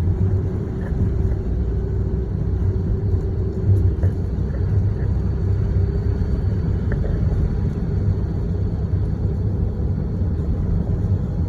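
Steady low rumble of a car being driven: road and engine noise with a faint steady hum.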